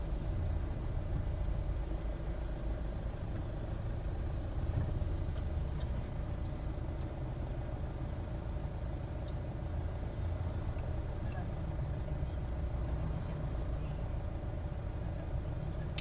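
Steady low rumble of a vehicle's engine and road noise heard from inside the cabin as it creeps forward in queued traffic, with a faint steady hum.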